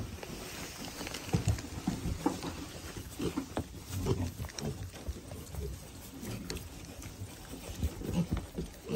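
Pigs grunting: a run of short, low grunts at an irregular pace from piglets in the pen.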